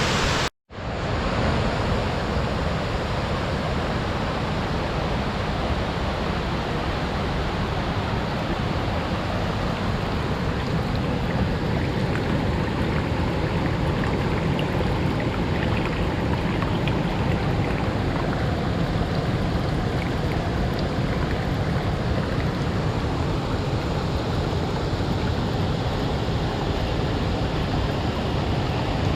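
Waterfall rushing: a steady, loud roar of falling water that cuts out for a moment about half a second in, then runs on unchanged.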